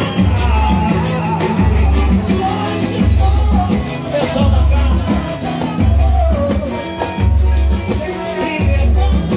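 Live pagode band playing: a male singer over acoustic guitar, with a deep bass beat about once a second.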